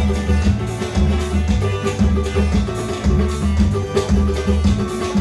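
Instrumental music: a plucked viola caipira melody over a steady bass line and a regular percussion beat.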